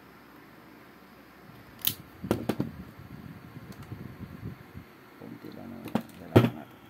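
Sharp clicks and snaps of hand tools on thin wire: a self-adjusting wire stripper and diagonal side cutters working a lead, with handling rustle in between. One snap about two seconds in, a quick cluster just after, and the loudest snap near the end.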